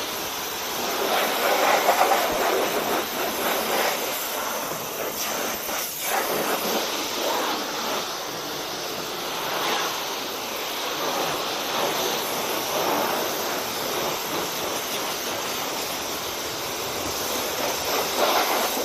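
High-pressure washer lance spraying water onto a car's bodywork: a steady hiss of the jet striking the panels, swelling and fading as the spray moves over the car.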